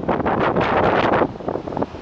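Strong typhoon wind buffeting the microphone in gusts, with a brief lull about two-thirds of the way through.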